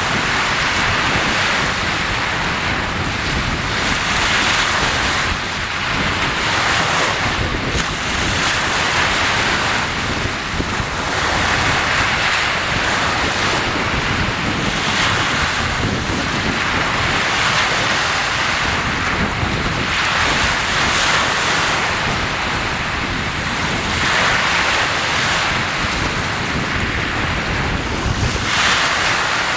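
Sea waves washing in, in repeated surges every few seconds over a constant rush of surf, with wind buffeting the microphone.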